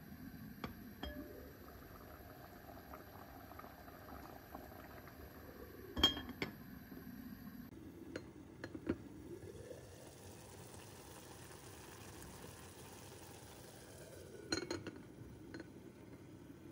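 Rice and orzo pilaf boiling gently in a pot under a glass lid: a faint, steady bubbling with scattered light glassy clinks, the sharpest about six seconds in and a few more near the end.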